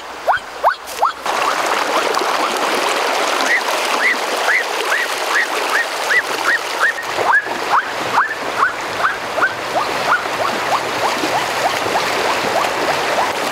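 Fast-flowing river water rushing and splashing. Over it, a short high chirp repeats about two to three times a second throughout.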